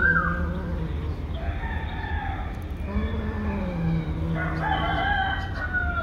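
Cat growling and yowling in several drawn-out, wavering calls while it holds a piece of chicken in its mouth, warning others off its food. A steady low hum runs underneath.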